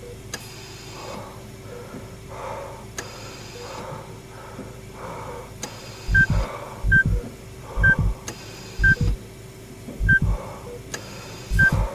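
Sci-fi sound effects: a steady electronic hum with a repeating warbling pattern. From about halfway, short high electronic beeps come roughly once a second, each paired with a low double thump like a heartbeat.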